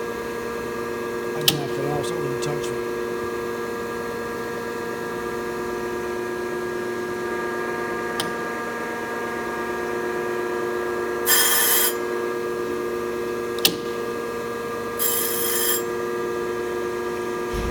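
A Thompson 8x24 surface grinder runs with the steady hum of its spindle motor and hydraulics. Over it come a few sharp clicks and, about two-thirds of the way in, two short hissing bursts less than a second each.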